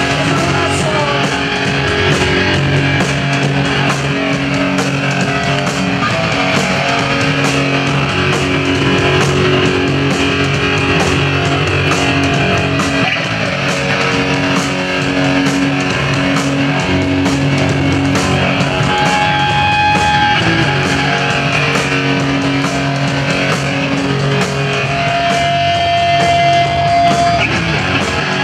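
Live band playing loud, steady rock music on electric guitars, bass guitar and drums.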